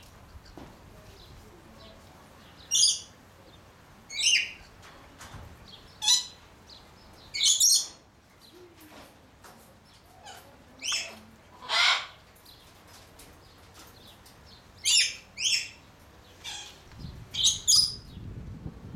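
Small birds chirping: about a dozen short, sharp calls at irregular intervals, a few of them fuller and lower in pitch.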